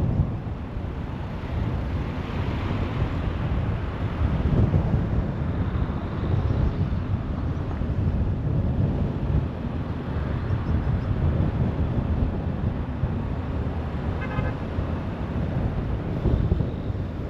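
A car driving along the road: steady engine and tyre rumble with wind buffeting the microphone, swelling and easing as it goes. A brief faint high-pitched chirp sounds once near the end.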